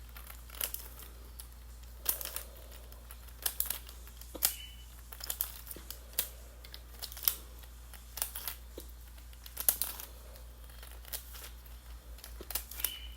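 Plastic fidget toy pieces being handled and snapped back together as the toy is reassembled: irregular light clicks and knocks, with a steady low hum underneath.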